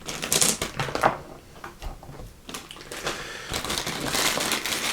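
A plastic bag of small painted game pieces being handled: the bag rustling and the pieces clicking together. There is a sharp click about a second in, a quieter stretch in the middle, and more rustling near the end.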